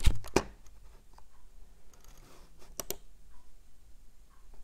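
Computer mouse clicks over faint room tone: a heavier click with a low thump at the start, then a quick double click near three seconds.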